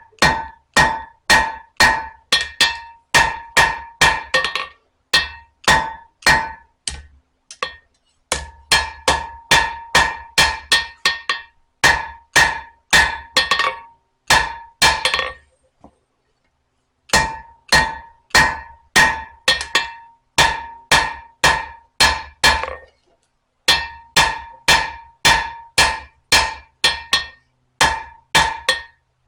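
Hammer blows forging hot spring steel on an anvil, about two to three strikes a second, each with a bright ring. The blows come in runs, with short pauses and a longer break about halfway through, as the steel is drawn out into the neck of a knife.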